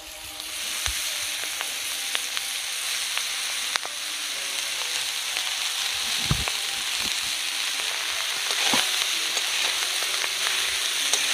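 Chopped kharkol leaves frying in hot mustard oil in a metal kadai: a steady sizzle that builds up about a second in, as the leaves go into the oil. A few sharp clicks come from the spatula knocking against the pan.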